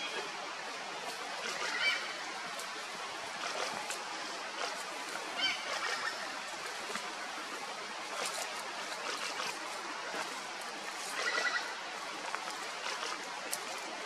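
Great slaty woodpeckers calling in short, repeated cackling series, a few times: about 2 s in, near the middle and again late on, over a steady background hiss.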